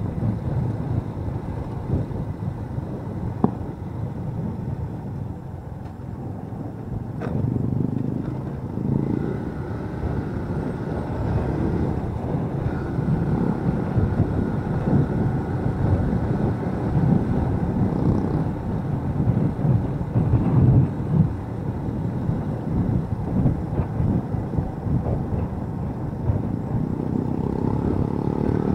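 Onboard sound of a motorcycle riding along an open road: the engine running under a steady, rumbling wind rush on the microphone.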